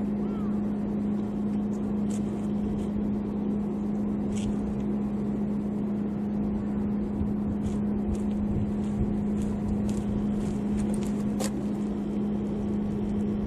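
Steady low engine hum, one unchanging tone, with a few faint ticks over it.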